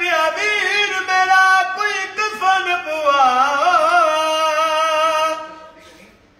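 An elderly man's unaccompanied voice singing a noha, a mourning lament, in long held notes with wavering ornaments. The phrase fades out about five and a half seconds in, leaving a brief pause.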